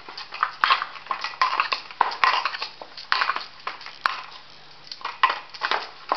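Hands kneading and rubbing maize-flour dough with the palm against a stainless steel bowl, working it soft: a run of irregular scraping, rubbing strokes, with a short lull about four seconds in.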